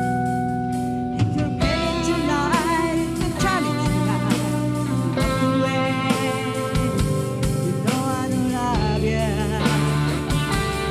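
A live rock band playing amplified: electric guitars, bass and drums, with a voice singing over them.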